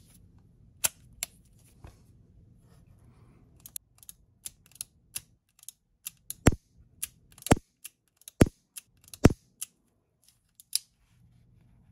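Metal clicks of a Taurus Model 84 revolver's action being worked by hand. A run of light clicks comes first, then four louder, sharp clicks about a second apart, and one more near the end.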